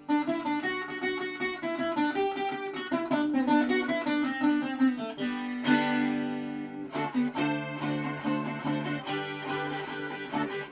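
Acoustic guitar played solo: a quick plucked melody over chords, with a louder strummed chord near the middle. It is an instrumental break between sung verses of a Madeiran folk song.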